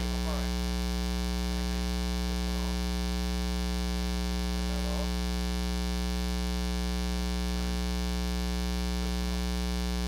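Steady 60 Hz mains hum with a ladder of higher harmonics. It is a ground-loop hum induced into the camera's recording by powering the camera from its AC adapter.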